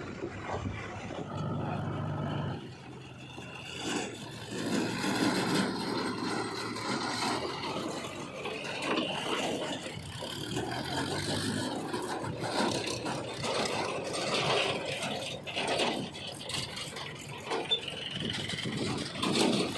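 Heavy machinery at work: engines running with irregular scraping and clattering.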